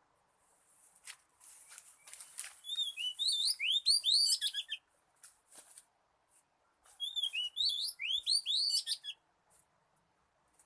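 Oriental magpie-robin song: two phrases of quick, sweeping whistled notes a few seconds apart, with a few short scratchy notes before the first, used as a lure call for trapping.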